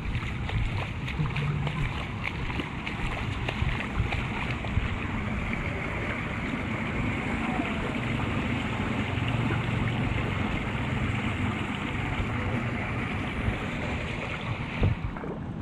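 Muddy floodwater running along a street gutter and draining into a curb inlet, a steady rushing and splashing, with wind buffeting the microphone. A single sharper knock comes near the end.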